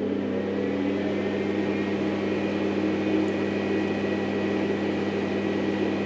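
Tornado Max manicure dust collector's fan motor, just switched on, finishing its spin-up in the first moment and then running at full speed with a steady hum. It has a medium noise level, quiet enough to talk over.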